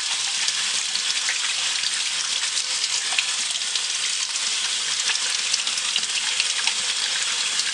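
Tap water running steadily from a bathroom faucet into a sink and splashing over hands being rinsed of soap lather.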